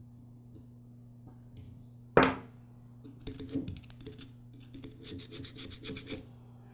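A metal pick scraping quickly back and forth against the cast carburetor body around the bowl-gasket seat, after one sharp knock about two seconds in.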